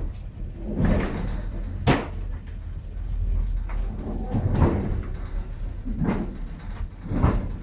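Low steady rumble of a passenger train carriage rolling slowly into a station, with several heavy knocks and clunks at irregular intervals.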